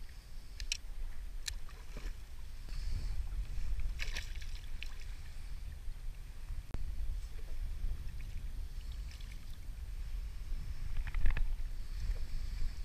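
Wind buffeting the microphone with a steady low rumble while choppy water splashes against a kayak's hull, with scattered small clicks and knocks. A louder knock and splash comes near the end.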